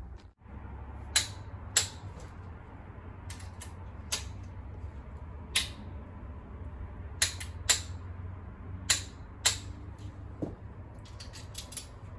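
About a dozen sharp metallic clicks and snaps at uneven intervals, some in close pairs, from tightening the cylinder head bolts on a Honda D16Y7 engine, over a steady low hum.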